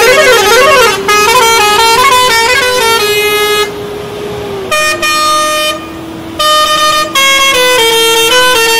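Bajrang six-pipe musical air pressure horn on a truck playing a tune: a quick warbling run of notes, then a string of stepped, held notes, with a short break about four seconds in. A steady drone runs underneath.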